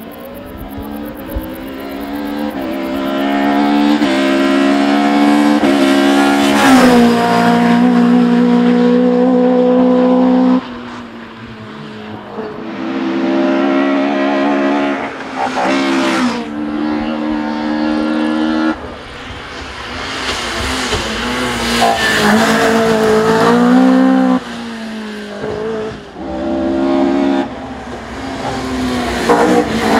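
Race-tuned 2-litre 16-valve four-cylinder engine of a 1979 Opel Kadett C hillclimb car revving hard under full throttle. Its pitch climbs again and again and breaks off sharply at each upshift or lift-off, and it grows louder as the car closes in.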